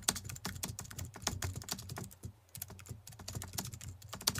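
Rapid computer-keyboard typing, an irregular patter of keystroke clicks with a short lull about two seconds in, laid over a caption being typed out on screen.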